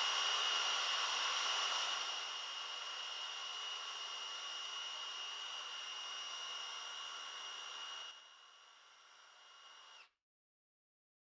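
Kobalt 24V brushless SDS-plus rotary hammer running free at full speed in drill mode, no bit and no load, giving a steady high whine that eases slightly in level about two seconds in and cuts off about eight seconds in. It measures about 101 decibels at the rear of the tool.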